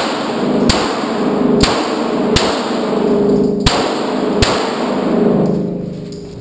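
CZ SP-01 pistol firing a string of handloaded rounds, about one shot a second, six in all. The first comes right at the start and the last about four and a half seconds in. Each shot trails off in a long echo off the indoor range's concrete walls.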